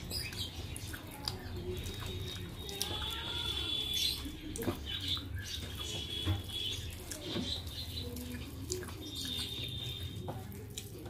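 Fingers mixing soft, starchy rice on a metal plate: wet squishing with scattered light clicks.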